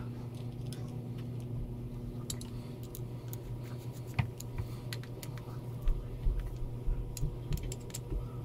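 Small irregular metallic clicks and taps as a screwdriver drives the cover screws into an outboard carburetor and the parts knock together in the hand, over a steady low hum.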